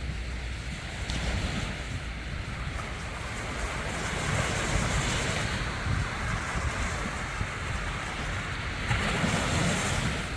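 Sea waves washing onto a beach, a steady rush of surf that swells about four seconds in and again near the end, with wind buffeting the microphone as a low rumble.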